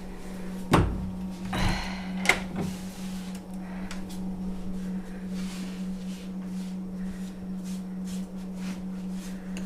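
A door shutting with a heavy thump about a second in, then a shuffle and a sharp click, followed by light scattered knocks and rustles over a steady low hum.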